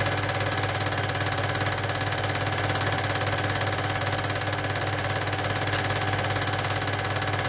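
Cine film projector running: a steady low hum with a rapid, even mechanical clatter from the film transport that never changes.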